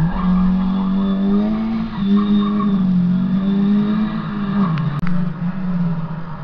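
Rally car engine held at high revs, with a brief break about two seconds in and the revs falling away near four and a half seconds. A sharp click and momentary dropout about five seconds in, after which another engine runs lower and steadier.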